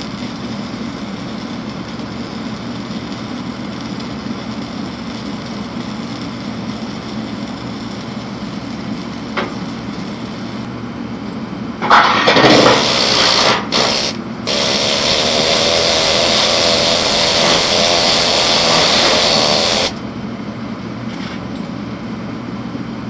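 Steady background hum, then a loud, harsh hiss of metalwork on the scraper's steel plate that starts about halfway through and lasts about eight seconds, with a short break near its start.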